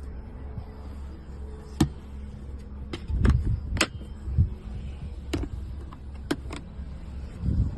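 Campervan doors and fittings being handled: a scattered run of sharp clicks and knocks, with a couple of dull thumps about three seconds in and near the end, over a low steady rumble.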